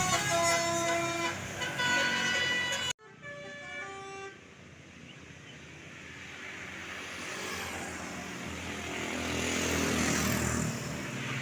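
Tourist bus 'telolet' horn playing a stepped multi-note melody, cut off abruptly about three seconds in; a few fainter horn notes follow, then the noise of an approaching vehicle builds steadily louder.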